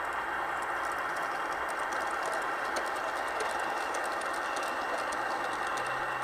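A Märklin gauge 1 model train running along garden track: a steady whirring rumble with quick, irregular clicking of the wheels over the rail joints, the clicks thickest in the middle.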